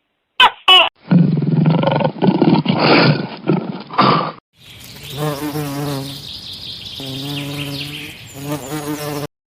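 A run of different animal sounds: two short calls falling in pitch, then a few seconds of loud, rough noise, then a buzzing, pulsing drone that cuts off suddenly near the end.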